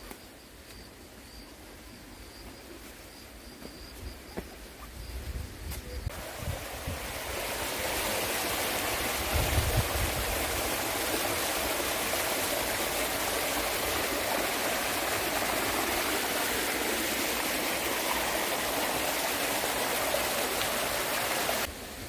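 A faint, high, steady insect trill at first. About six seconds in, a small waterfall spilling into a rocky stream pool takes over with a loud, steady rush of water that cuts off suddenly near the end.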